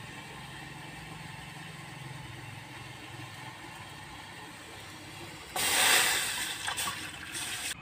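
Water poured from a glass mug into a metal cooking pot, a loud splashing rush that starts about five and a half seconds in and tapers off over about two seconds. Before it, a steady low hum.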